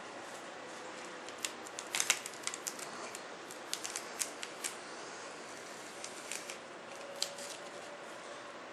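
Thin protective plastic film crackling as it is peeled off a subwoofer's aluminium cone, in scattered sharp clicks and crackles over a steady hiss.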